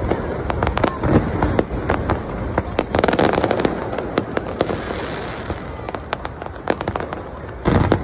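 Fireworks display: many sharp cracks and pops in quick succession over a continuous low rumble of bursting shells.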